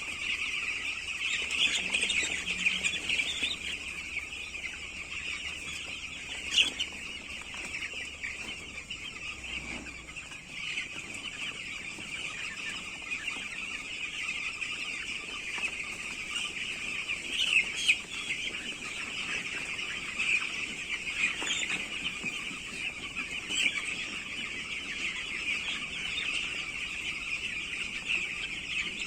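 A flock of broiler chickens calling continuously: a dense, steady chorus of high peeping and clucking, with a few brief louder sounds, one about a quarter of the way in and another past halfway.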